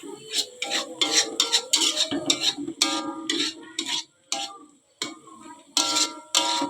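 A spatula stirring and scraping against a frying pan, tossing egg through the fried garlic, scallion and celery, in quick runs of scrapes and clinks with short pauses about four and five seconds in.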